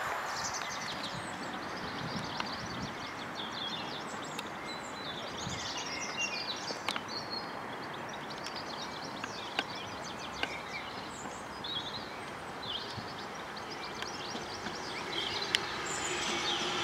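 Birds singing over a steady background hiss, with a few sharp clicks. Near the end the sound of an approaching Class 323 electric multiple unit grows louder, with a steady high whine.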